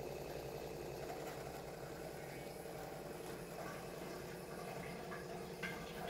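Kent Grand+ RO water purifier running: a faint, steady hum from its diaphragm booster pump with water flowing through the filters. No warning beep sounds, its faulty UV lamp choke having been replaced.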